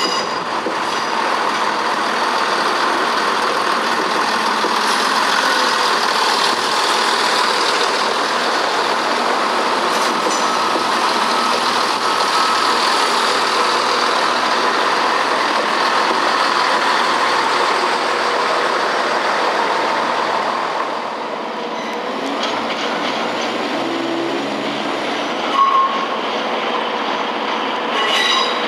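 A train running on the rails: a steady rumble of wheels and track that eases off about three quarters of the way through, with a few sharp clicks near the end.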